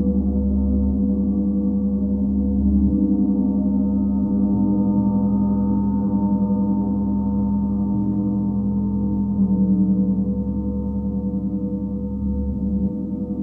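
Planetary gongs ringing in a sustained drone of many overlapping tones, with a slow pulsing shimmer and the mix of tones shifting gradually.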